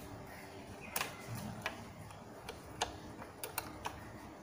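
A handful of faint, sharp, irregular metal clicks as a thin steel wire is worked through a motorcycle seat-lock bracket and latch, two of them in quick succession near the end.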